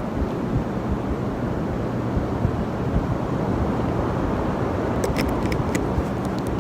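Beach ambience: steady wind rumbling on the phone's microphone over the wash of ocean surf, with a quick run of small sharp clicks about five seconds in.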